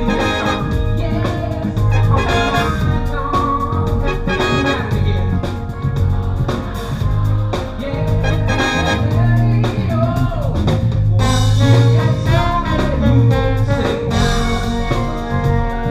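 Live band with a brass section of trombones and saxophone playing over drums and bass.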